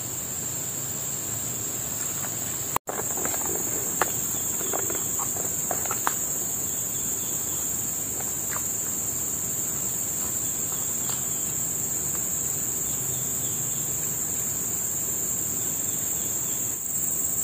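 Steady high-pitched chorus of insects chirring without a break, with a few faint clicks a few seconds in. The sound cuts out for an instant just before three seconds in.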